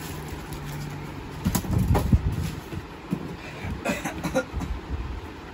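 Handling noise from a speaker cabinet being pulled out of its cardboard box: knocks and bumps with rustling of plastic wrap, loudest about two seconds in and again near four seconds. A low steady hum runs for the first second and a half.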